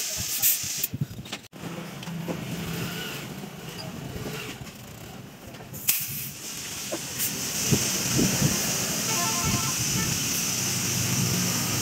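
Compressed air hissing from a hose as a large tractor inner tube is inflated, with a steady motor hum underneath. The sound cuts out briefly about a second and a half in.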